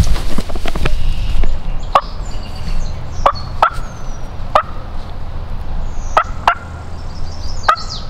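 Wild turkey calling: about seven sharp, short notes at uneven spacing over several seconds, over a low wind rumble, with small songbird whistles high above.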